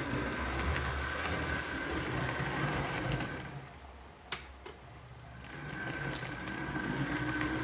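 Athearn blue box HO-scale SD40T-2 model locomotive running along the track, its small motor and gears giving a steady whine over the rumble of the wheels on the rails. The sound fades as the locomotive runs off to the far end of the layout around the middle, with a single sharp click, then grows louder again as it comes back.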